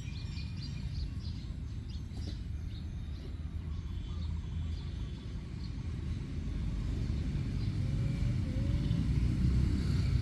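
Low steady rumble, getting louder in the second half, with faint bird chirps above it.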